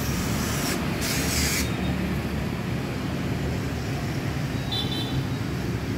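Small electric screwdriver working the screws of an SSD into its metal laptop drive bracket, with a short scratchy hiss about a second in. A steady low rumble runs underneath.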